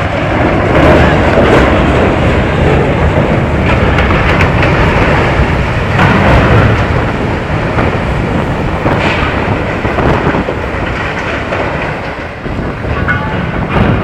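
A 19,000-tonne ship's steel hull ploughing up the beach under way as it is deliberately beached for scrapping, making a loud, continuous rumbling and grinding. It starts suddenly and eases slightly near the end.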